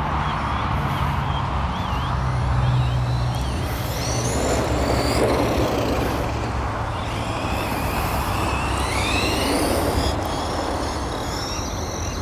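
Twin brushless electric motors of a Tamiya Twin Detonator RC car whining, the pitch rising sharply as throttle is applied about four seconds in and again from about seven to ten seconds, over a steady hiss. The power comes on abruptly rather than smoothly, which the owner cannot control.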